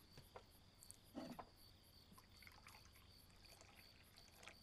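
Faint pouring of wine from porcelain jugs into small cups, with a few light clinks a little over a second in.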